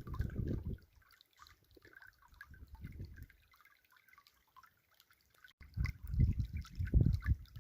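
River water running and trickling in a steady babble, with loud low rumbling surges that come and go: one at the start, a weaker one about three seconds in, and a longer, louder one through the last two seconds.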